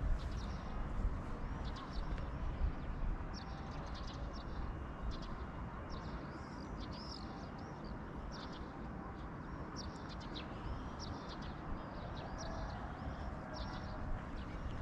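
Birds chirping: many short, high chirps scattered throughout, over a steady low background rumble.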